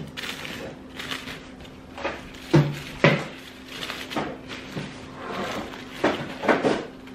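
Tissue paper rustling and crinkling in irregular strokes as the layers of a paper pom-pom flower are pulled apart and fluffed by hand. Two louder handling noises come about two and a half and three seconds in.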